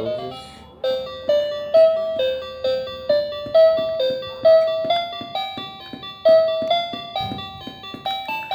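A simple electronic melody played one plinky, keyboard-like note at a time, at about two notes a second.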